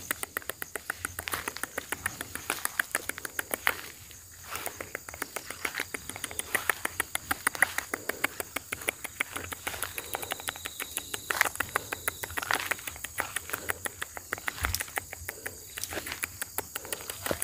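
Rapid, irregular crackling and rustling clicks in vegetation, several a second, over a faint steady high insect drone.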